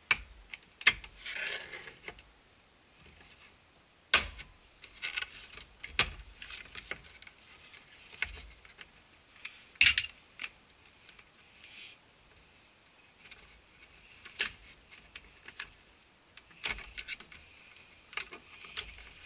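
Plastic interior door trim of a Ford F-150 being handled and worked loose by hand: scattered sharp clicks and knocks with plastic rubbing and scraping in between.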